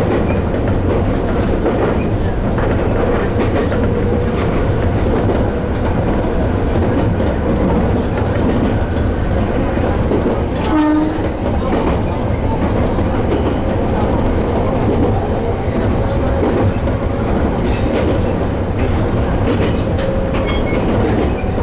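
Train on the Toyama Chihō Railway Tateyama Line running steadily, its wheels rumbling on the rails. A short pitched tone sounds briefly about halfway through.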